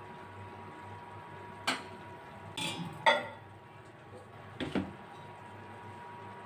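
A spoon and small glass bowl knocking and clinking about four times, the loudest about three seconds in, over a steady low kitchen hum.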